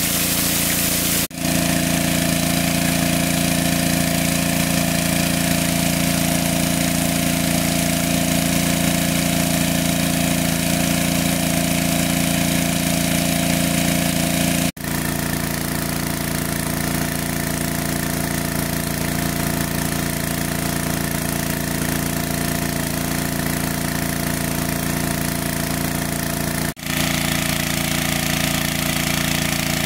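Engine of a large water pump running steadily at constant speed, broken by three very short gaps.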